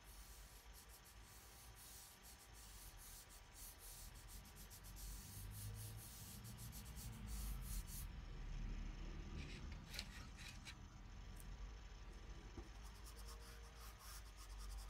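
Faint scratchy rubbing of a fingertip blending soft pastel into paper, the chalky pigment smearing under the finger.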